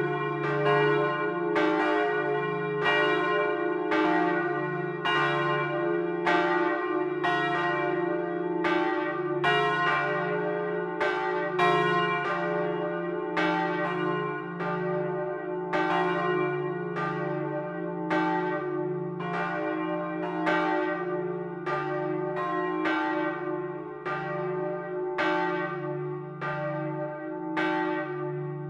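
Swinging church bells pealing, heard close up inside the bell chamber. Their strikes overlap in an uneven pattern, about one and a half a second, each ringing on over a steady deep hum.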